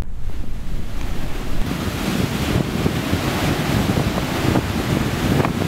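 Ocean surf washing onto a beach: a steady rush of waves.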